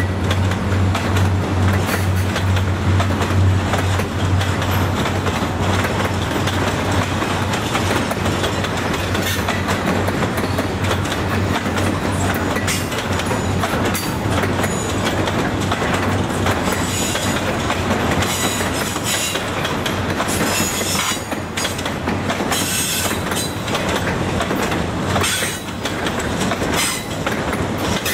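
Intermodal container well cars of a freight train rolling past: a steady rumble of steel wheels on rail with repeated clicking over rail joints. Bursts of high-pitched wheel squeal come in the second half.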